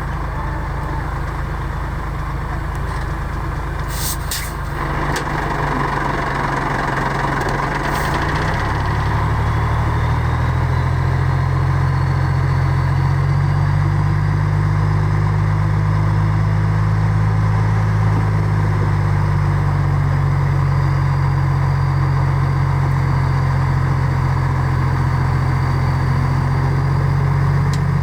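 Heavy diesel engine of an earthmoving machine running steadily. About nine seconds in it revs up and grows louder, with a faint rising whine, then holds there. Short hisses come about four seconds in.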